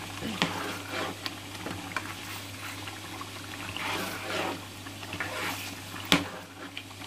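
A metal spoon stirring simmering mutton karahi gravy in a non-stick pot: liquid sloshing and bubbling, with a few sharp knocks of the spoon on the pot, the loudest about six seconds in. A steady low hum runs underneath.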